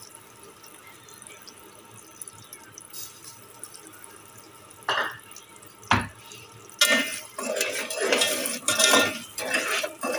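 Sugar syrup with milk and cream bubbling quietly in an aluminium pot. A sharp knock comes about six seconds in, and from about seven seconds a metal spoon stirs and scrapes against the pot in quick repeated strokes.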